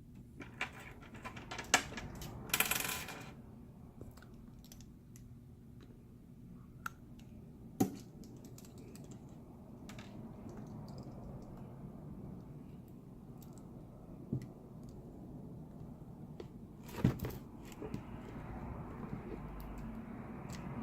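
Small screws and a precision screwdriver clicking and tapping on a MacBook Pro as screws are set to hold its replacement screen in place: scattered sharp clicks, a brief rustle about three seconds in, over a faint steady hum.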